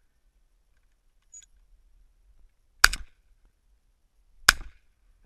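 Two shotgun shots about a second and a half apart, each a sharp crack with a brief tail.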